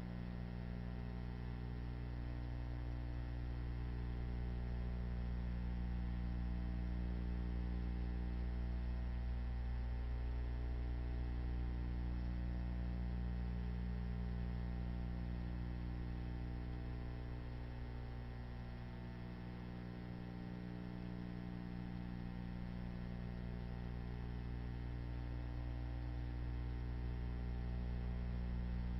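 Steady electrical mains hum, a low drone with a stack of higher steady tones above it and faint hiss, with nothing else happening.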